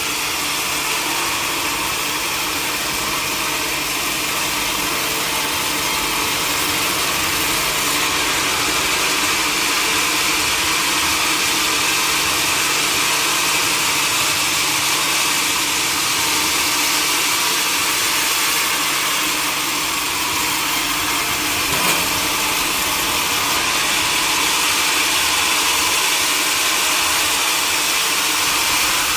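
Sawmill machinery running steadily: a constant mechanical drone with a strong hiss over it. There is one short knock about three quarters of the way through.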